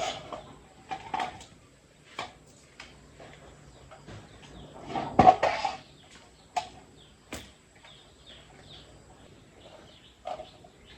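Chickens clucking now and then, with scattered knocks and a louder clatter about five seconds in, and small birds chirping faintly.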